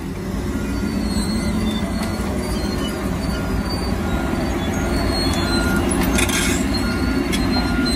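Steady diesel engine and hydraulic noise of a Tigercat tracked feller buncher working through pine trees, heard from inside another machine's cab.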